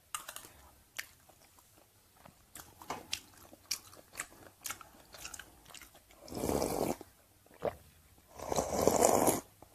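Close-miked chewing with small wet mouth clicks, then two loud slurps of Khmer sour soup drunk straight from the bowl, one about six seconds in and a longer one near the end.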